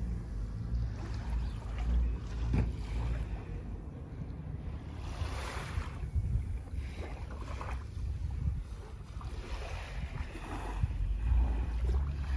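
Wind rumbling on the microphone, with small waves washing onto the sandy shore in soft swells of hiss every few seconds.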